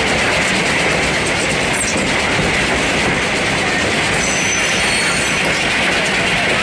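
Steady running noise of a railway carriage's wheels on the rails, heard close at the coupling end of the moving car. Faint, brief, high wheel squeals come about four seconds in.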